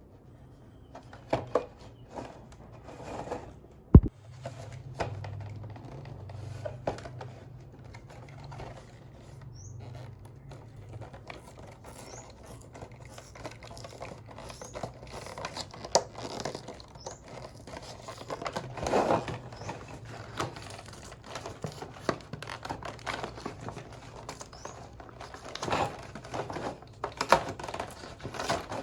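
Toy packaging being handled and opened: crinkling, scraping and tearing with scattered clicks, and one sharp knock about four seconds in.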